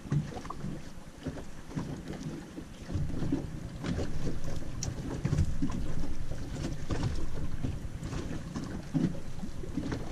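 Wind buffeting the microphone over water lapping against a small boat's hull, growing louder about three seconds in, with a few light clicks.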